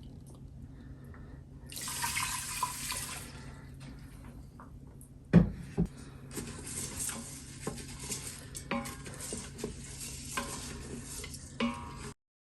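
Water is poured into the Instant Pot's inner pot for about a second and a half. Two sharp knocks follow, then a long stretch of rice and water being stirred, with a spoon scraping and clinking against the pot.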